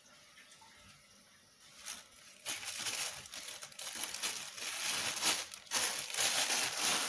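Clear plastic packaging bag crinkling as it is handled, starting about two and a half seconds in.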